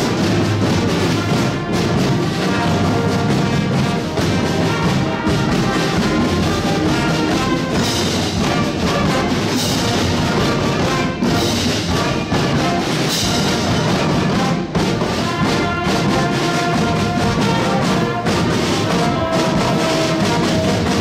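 Live brass marching band playing: trombones, trumpets and sousaphones over a line of snare and bass drums.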